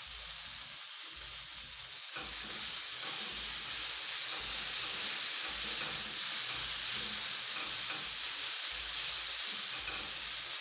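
Omena (small dried fish) sizzling as they fry in a pan, a steady hiss that gets louder about two seconds in.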